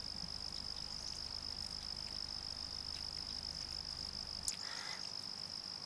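Night-time insects trilling: one steady, unbroken high-pitched note, with a brief click and rustle about four and a half seconds in.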